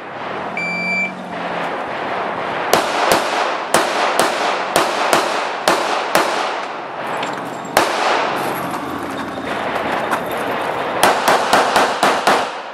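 A shot timer beeps once, about half a second in, starting the run. Then a handgun fires in quick strings: about ten shots over three and a half seconds, a lone shot, then a faster burst of about six shots near the end.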